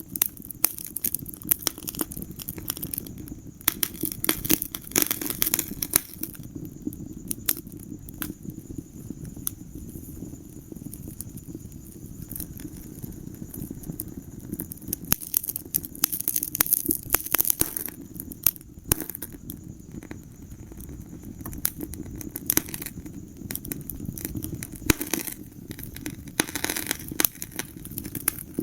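Wood fire in a fireplace crackling, with irregular sharp pops and snaps over a steady low rumble of the flames. The pops come in thicker clusters at the start, midway and near the end.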